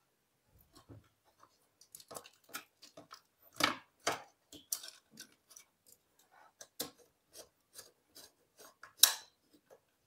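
Irregular clicks, taps and scrapes as a wire is handled and a screwdriver works a terminal screw on a plastic switch board and socket, with the sharpest clicks about three and a half seconds in and about nine seconds in.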